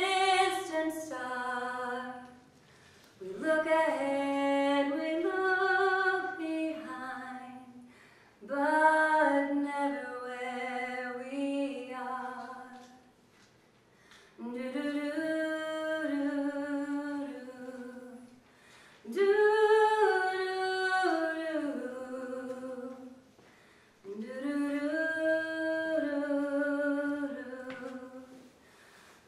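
A solo woman's voice singing a cappella, unaccompanied, in melodic phrases of about four to five seconds, each followed by a brief pause for breath.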